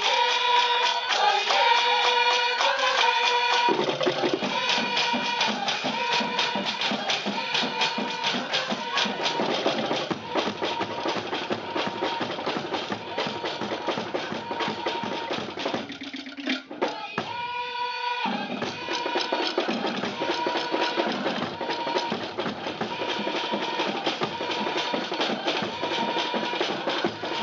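Tahitian ʻōteʻa drum ensemble playing a fast, driving rhythm on wooden slit drums (toʻere) and drums, with a brief break a little past halfway.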